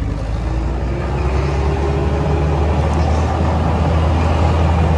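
Jeep engine running under way, heard from inside the cab as a steady low drone.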